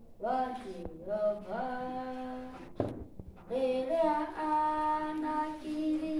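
A boy singing unaccompanied, holding long notes phrase after phrase, with a short pause for breath about three seconds in.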